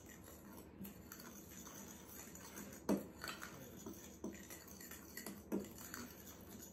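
A utensil stirring flour and salt in a glass mixing bowl: faint scraping, with a few light taps against the glass, the loudest about three seconds in.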